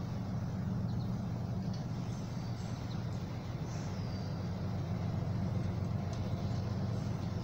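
Steady low outdoor rumble with a few short, high, falling chirps over it.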